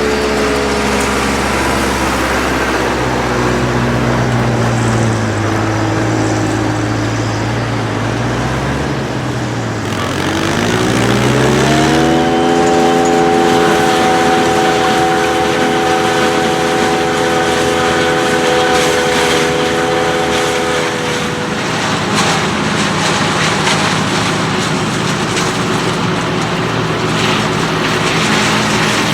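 Tractor engine working during a maize harvest: its revs sink slowly, then climb quickly about ten seconds in and hold high for around ten seconds before dropping back, over a steady mechanical noise.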